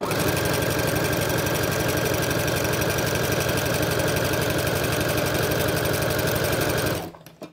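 Electric sewing machine with a walking foot running steadily at a fast speed setting, stitching a test seam in knit fabric with rapid, even needle strokes. It stops abruptly near the end.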